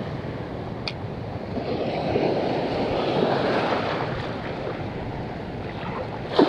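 Surf washing along the shore, swelling in the middle and easing off again, with wind buffeting the microphone.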